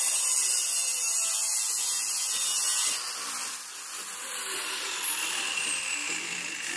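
Diamond-blade angle grinder cutting marble: a steady high-pitched whine over a harsh grinding hiss. From about four seconds in, a thin whine slides slowly down in pitch.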